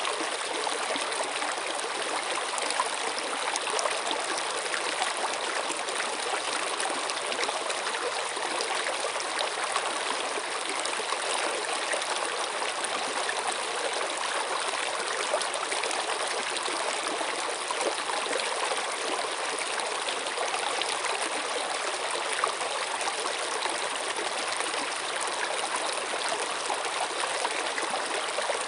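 Running water of a flowing stream, trickling and splashing steadily without a break.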